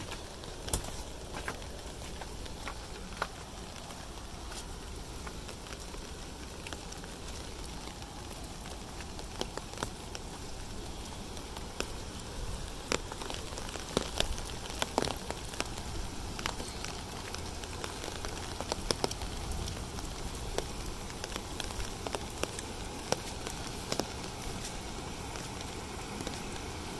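Rain falling steadily on a hail-covered yard, an even hiss with irregular sharp ticks of drops and hailstones striking, the ticks thickest midway through.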